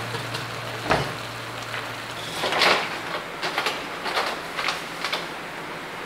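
Ground beef frying with a steady sizzle in an aluminium pot, with a sharp clink about a second in. From about halfway through comes a run of scrapes and knocks as a wooden spoon stirs the meat against the pot.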